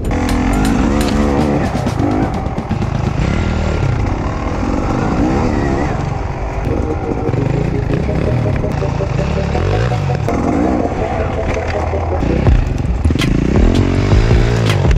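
Enduro motorcycle engines revving up and down again and again, pitch rising and falling with each blip of the throttle, with a few sharp knocks near the end.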